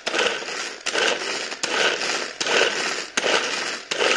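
Pull-cord manual vegetable chopper being worked steadily, about one pull every 0.8 seconds: each pull gives a click followed by a short noisy whir of the spinning blades chopping onion pieces in the plastic bowl.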